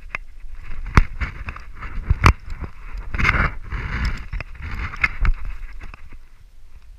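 Handling noise on a GoPro action camera in its housing, worn on the arm of a bungee jumper hanging on the cord: rubbing and scraping against clothing and harness, with sharp knocks. The three loudest knocks come about one, two and a quarter, and five and a quarter seconds in, and the noise fades near the end.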